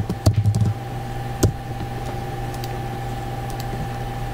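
A few short computer keyboard and mouse clicks over a steady electrical hum.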